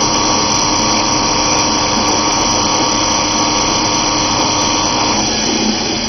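Electric wood router running at speed, its bit cutting a circular groove in a wooden box base as the rotary table turns: a loud, steady whine whose tone shifts about five seconds in.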